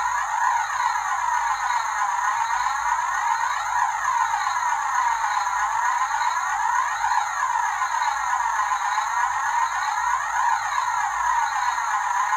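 Steady electronic whooshing drone whose tone sweeps up and down in slow arcs, repeating about every three seconds.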